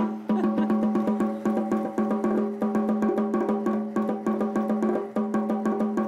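Restored drumming bear automaton beating its 19th-century toy drum with rapid, even strokes, about six a second, over a steady ringing tone.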